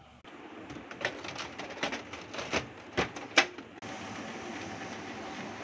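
Clicks and knocks of a toner cartridge being pushed into an HP laser printer and the printer's cover being shut, the two loudest knocks about three seconds in. Then, just before four seconds, the printer starts running steadily with a faint hum.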